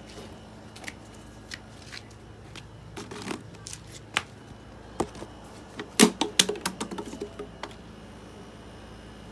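A plastic water bottle handled in the hand: scattered sharp clicks and crackles of thin plastic, with a louder burst of crinkling about six seconds in.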